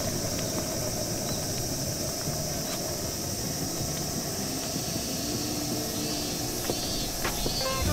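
Portable camping gas stove burner running with a steady hiss under a frying pan.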